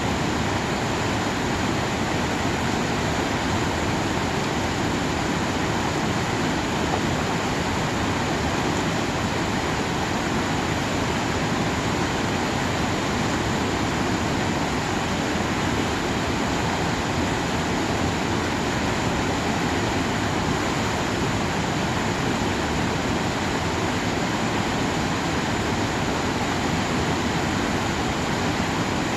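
Water of a swollen mountain stream rushing steadily, an even hiss with no breaks.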